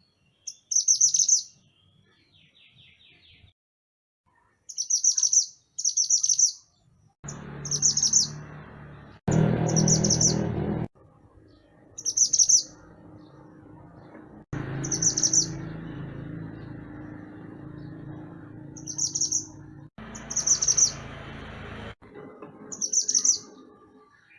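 Mantenan gunung songbird giving short, high, rapidly trilled calls, each about half a second, repeated a dozen times at irregular gaps of one to two seconds. Between about seven and eleven seconds and again from about fourteen to twenty-two seconds, a low background rumble and hiss starts and stops abruptly under the calls.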